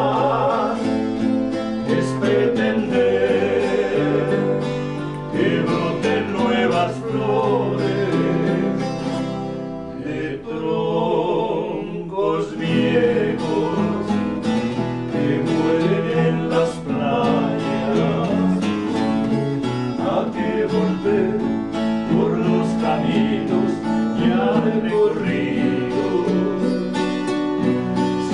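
Two men singing a Colombian song in duet, accompanied by two acoustic guitars strummed and picked, one of them a twelve-string instrument.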